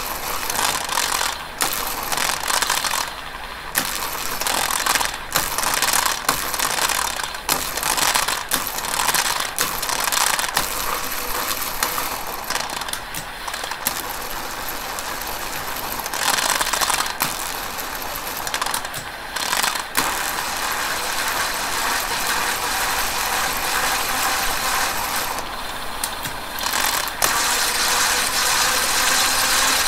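Shimano Alfine 8 (SG-S501) eight-speed planetary hub gear running under pedal drive, its internal gears whirring steadily, heard from a few centimetres away; the hub still has its factory grease, which keeps the sound dull rather than ringing. Brief shifter clicks come about a third of the way in, about two thirds in and near the end as it is shifted up to 6th, 7th and 8th gear.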